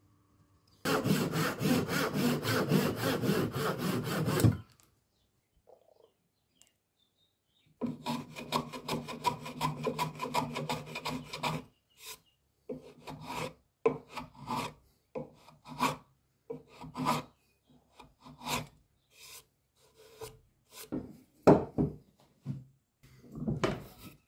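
A tool working wood with rasping strokes: a fast continuous run about a second in and again in the middle, then short separate strokes about two a second.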